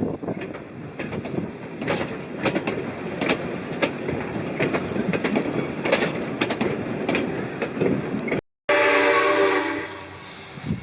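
A train running past with wheels clicking and clattering over the rails for about eight seconds. After a brief cut, the steam whistle of RX 207, a South Australian Railways RX-class steam locomotive, sounds loudly for about a second and a half and fades.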